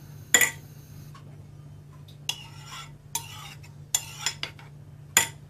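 Metal spoon stirring thick yogurt in a ceramic bowl, scraping against the bowl in short strokes, with a sharp clink against the rim at the start and another near the end.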